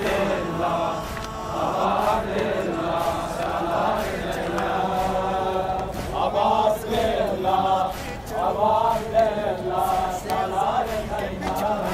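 Group of men chanting a Muharram mourning lament (nawha) in unison, in sung phrases that rise and fall.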